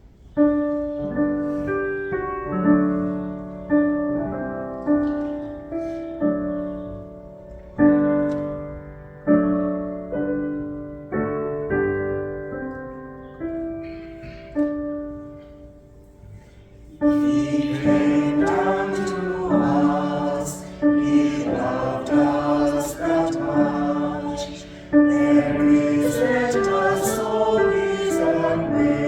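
A church choir's hymn with piano accompaniment. A piano plays an introduction of struck, fading chords, and the choir comes in singing with it about 17 seconds in.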